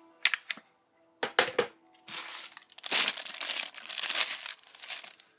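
Plastic wrapping crinkling as it is handled: a few short crackles in the first two seconds, then continuous crinkling until near the end.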